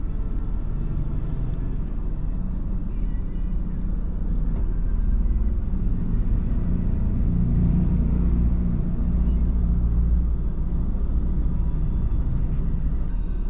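Steady low vehicle rumble heard inside a parked car's closed cabin. It swells for several seconds in the middle, then eases back.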